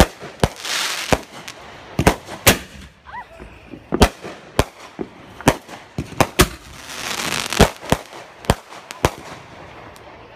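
Fireworks going off: about a dozen sharp bangs at uneven intervals, with two stretches of crackling hiss between them, one about a second in and one about seven seconds in.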